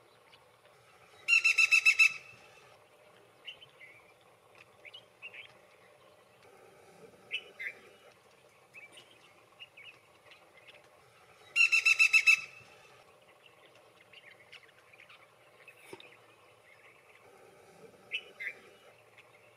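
Black-rumped flameback woodpecker giving its rattling call twice, about ten seconds apart, each a fast run of evenly spaced notes lasting under a second. Faint short chirps of other birds come in between.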